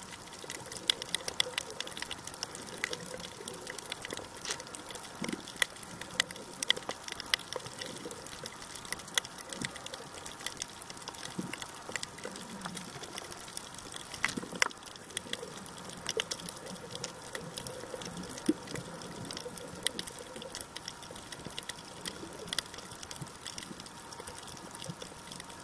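Underwater sound over a coral reef: a constant, irregular crackle of many sharp clicks, with a faint steady hum beneath.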